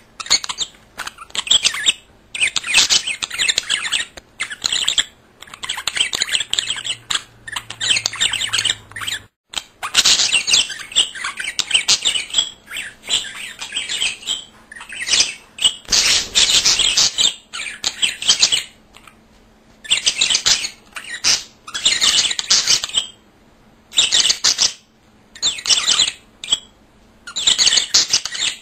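Budgerigar warbling: fast, scratchy chatter in bouts of half a second to two seconds, with short pauses between.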